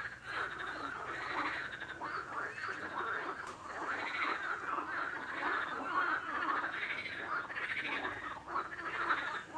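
A chorus of many frogs calling over one another in a dense, unbroken wall of overlapping calls.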